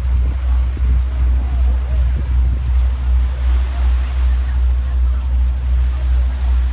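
Boat engine rumbling low and steady with an even throb, heard from on deck, over a faint hiss of water and wind. Faint voices carry in the background.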